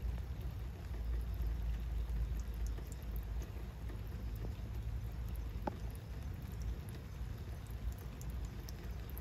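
Rain falling, with water dripping from the underside of a car onto wet asphalt in scattered small ticks, over a steady low rumble. A brief thin squeak a little past halfway.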